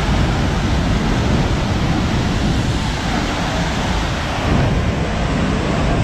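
Steady, loud rushing of a large waterfall pouring into its plunge pool, an even wash of water noise without breaks.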